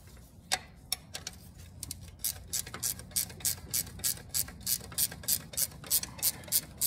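Hand ratchet wrench clicking as it loosens a 3/4-inch banjo bolt on a tractor's hydraulic high-pressure line: a few scattered clicks, then from about two seconds in a steady run of about three clicks a second.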